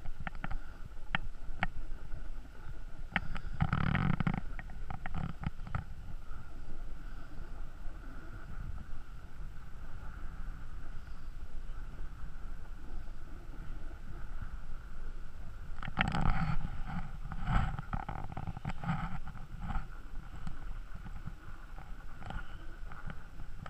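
Sliding down a groomed snow run: a steady rumble and scrape of edges over packed snow, with wind on the microphone. Clusters of clicks and knocks come about four seconds in and again from about sixteen seconds on.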